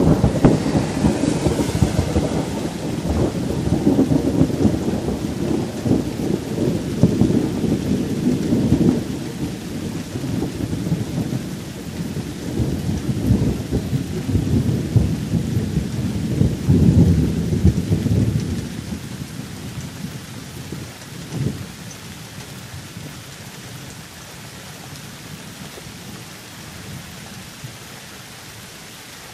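Thunderstorm: long rolls of thunder rumbling in waves over steady rain, the thunder dying away about two-thirds of the way through to leave only the rain.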